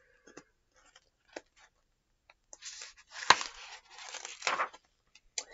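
Page of a large paperback picture book being turned: a paper rustle lasting about two seconds, with a sharp snap of the page about three seconds in, after a few faint taps of the book being handled.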